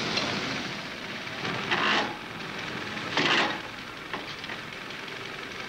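Ford Ferguson tractor engine running, heard through the hiss of an old film soundtrack, with two louder surges about two and three and a half seconds in.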